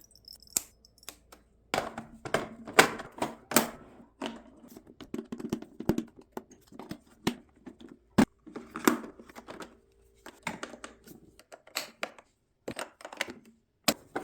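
A Cuckoo pressure rice cooker being worked on by hand: irregular clicks, taps and knocks of its hard parts being handled.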